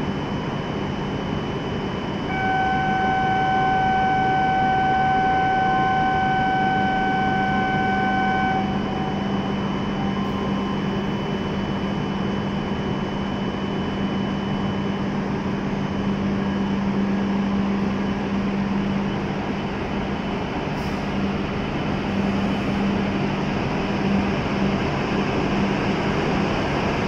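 An E7-series Shinkansen train at a station platform, with a steady hum. For about six seconds near the start, a steady electronic alert tone sounds. Later the train starts moving and pulls out of the station.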